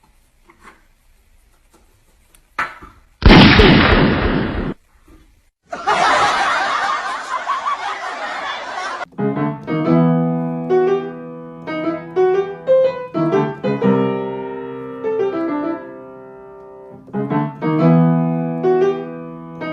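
Two loud, rough noise bursts in the first half. Then piano-like keyboard music with a simple repeating melody takes over at about nine seconds.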